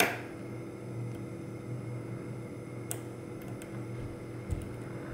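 Steel pick working the pins of a Goal V18 dimple lock under tension: a sharp click at the start, then a few faint light ticks, over a steady low hum.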